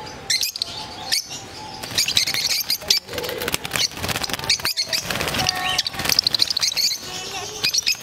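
A cage of lovebirds chirping rapidly in high, overlapping calls, with wing flutters and sharp clicks of the wire cage as a hand reaches in to catch one.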